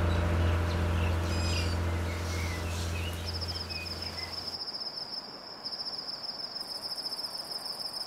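Night-time nature ambience: a few short bird chirps over a low droning hum that fades out about halfway through, then a steady, high, rapidly pulsing insect trill from about three seconds in.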